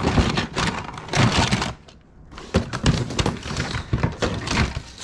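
Rustling, crinkling and clattering of stored items being moved and handled while rummaging through the unit, with a short lull about two seconds in.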